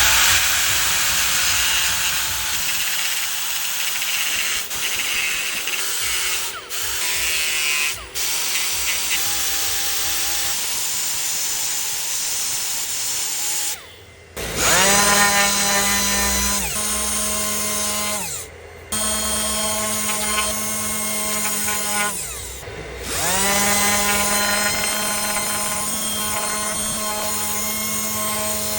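Electric power tools working on a wheel rim. First comes a rough, noisy sanding or grinding sound. From about halfway, a motor spins up with a rising whine and then runs at a steady pitch, restarting twice after abrupt cuts.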